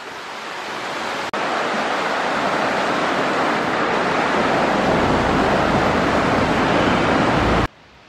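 Sea surf breaking and rushing against the shore, a steady roar that slowly grows louder, with a deep rumble joining in the second half. It cuts off suddenly near the end.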